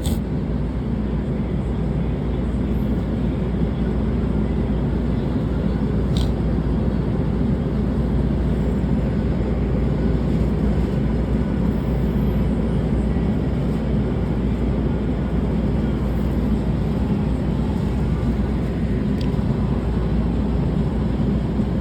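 Steady low rumble and hiss inside a Metro A Line light-rail car, with a faint click about six seconds in.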